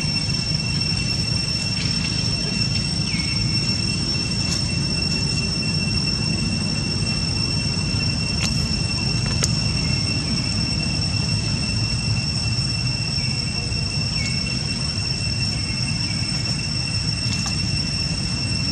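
Steady, high-pitched drone of insects holding two even tones, over a steady low rumble, with a few faint clicks.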